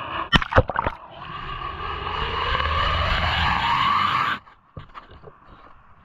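A motor's whine rising steadily in pitch over a low rumble, cut off abruptly a little over four seconds in. A few sharp clicks and knocks come just before it, and scattered faint clicks after.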